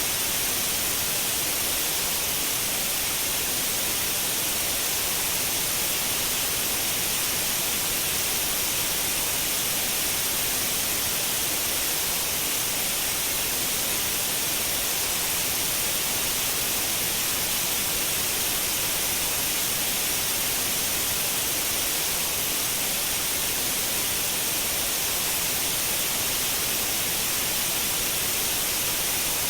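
Continuous white noise: a steady, even hiss, brightest in the high range, that does not change in level.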